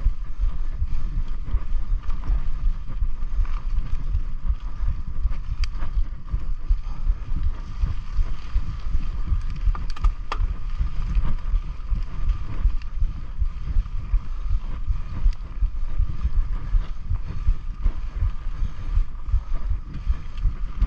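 Mountain bike ridden along a dirt trail: wind buffeting on the microphone and a low rumble over the ground, with a steady mid-pitched hum and a few sharp clicks, the loudest about ten seconds in.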